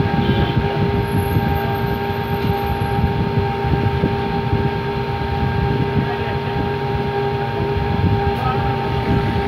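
Steady mechanical drone with a low rumble and a few constant whining tones, from a motor or fan running without a break.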